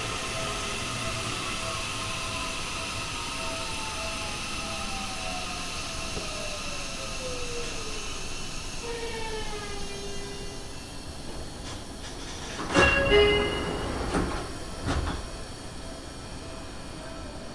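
Seibu 30000-series train's Hitachi two-level IGBT VVVF inverter whining in several tones that fall steadily in pitch as the train brakes, with a short stepped tone near ten seconds in before the whine fades out. The train comes to a stop with loud bursts of noise from about thirteen seconds in, then a second burst near fifteen seconds.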